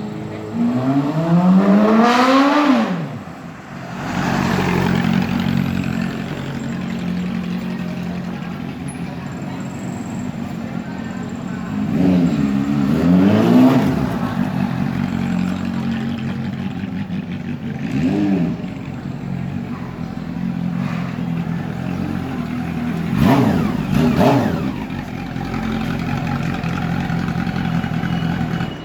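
Honda CB400 Hyper VTEC Spec 1 inline-four motorcycle engine idling with throttle blips: one long rev climbing high and dropping back just after the start, then two blips a little before the middle, one short blip, and two more near the end, settling back to a steady idle between them.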